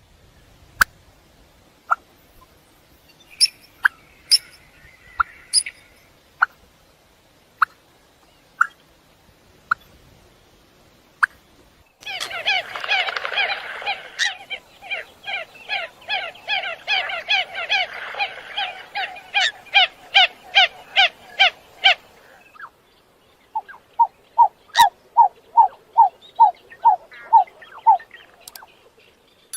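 Coots calling. Scattered single sharp notes come first, then a fast chattering run of calls for about ten seconds. After a short pause there is a steady series of calls, about two a second.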